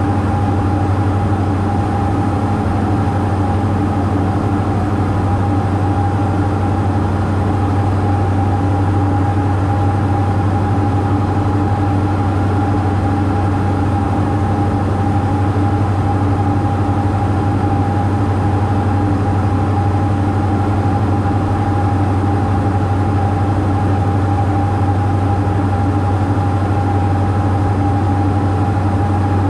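Diamond DA42 twin-engine propeller aircraft in flight, heard inside the cockpit: a steady drone of engines and propellers with a low hum and a few steady higher tones that do not change.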